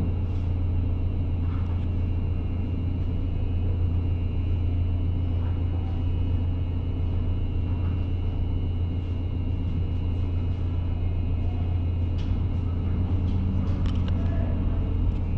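A ferry's engine machinery idling at the berth: a steady deep hum with a faint, steady high whine over it. A few faint knocks come near the end.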